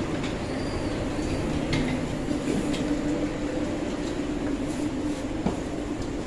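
London Northwestern passenger train standing at a station platform, its onboard equipment humming steadily, with a few light ticks and one sharp knock about five and a half seconds in.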